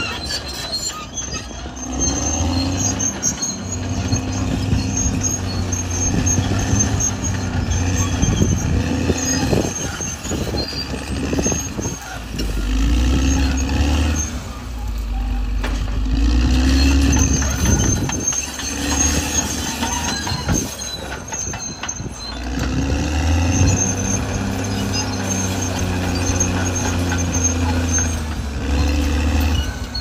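Caterpillar D6R XL bulldozer's diesel engine working under load, its pitch rising and falling as the load comes and goes, with intermittent high squeaks over the top.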